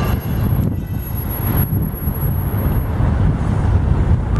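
Airbus A380-861's four Engine Alliance GP7200 turbofans making a steady low rumble as the airliner comes in on final approach with its gear down.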